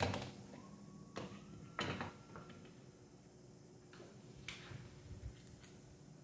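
A few light knocks and clicks as hand tools are picked up and set down on a primed wooden window sill. The first knock, right at the start, is the loudest; others follow about one, two and four and a half seconds in.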